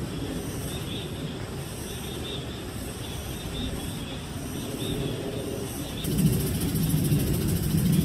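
Outdoor forest ambience: a steady low rumble with short high chirps repeating every second or so. About six seconds in, a louder fast-pulsing high buzz and a heavier rumble set in.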